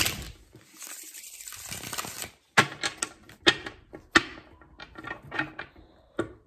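Tarot cards being riffle-shuffled: the end of a riffle cascade right at the start, a soft sliding hiss over the next couple of seconds, then a string of sharp separate clicks and taps as the deck is handled and squared.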